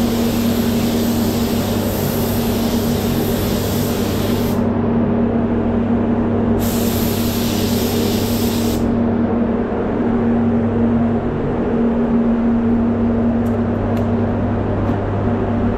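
Compressed-air hiss of a SATAjet X5500 RP spray gun laying on clear coat, in two trigger pulls: one that cuts off about four and a half seconds in, then a shorter burst of about two seconds starting a couple of seconds later. A steady low mechanical hum sits underneath.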